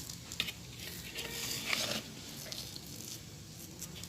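Faint rustling and soft scraping of hands rolling and shaping semolina dough, with a sharp knock right at the end.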